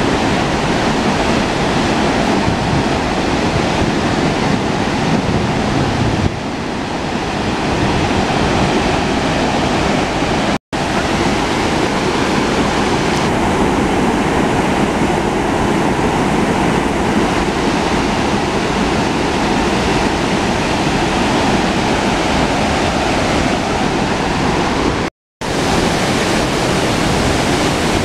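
Steady rushing of Burney Falls, a tall waterfall pouring into its plunge pool. The sound breaks off for an instant twice, about ten seconds in and near the end.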